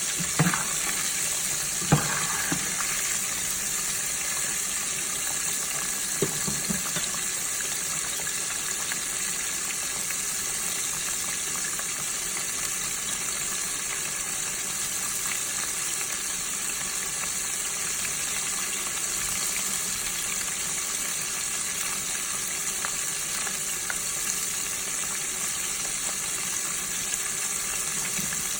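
Flour-dredged shrimp deep frying in hot oil, a steady sizzle, with a few light knocks in the first seven seconds.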